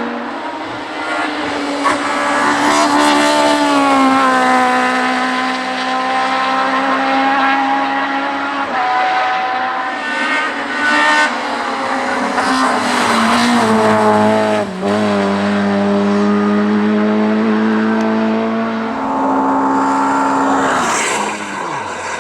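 Hill-climb race car engine running hard at high revs. Its pitch steps down and climbs again several times with gear changes and lifts, with a sharp dip about fifteen seconds in.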